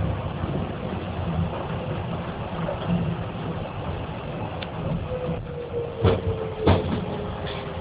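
Docklands Light Railway train running, heard from inside the carriage: a steady rumble, with a faint whine slowly falling in pitch from about five seconds in and two sharp knocks soon after.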